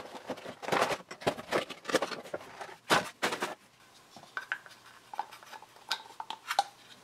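Cardboard box and clear plastic insert rustling and crinkling as a vinyl Funko Pop figure is taken out, then a few light clicks and taps as the figure is handled.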